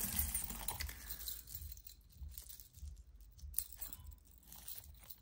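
Metal costume jewelry (chains, earrings, bangles) rustling and clinking as a hand rummages through a heaped pile. A rustle in the first second or so is followed by scattered light clicks, one sharper tap about three and a half seconds in.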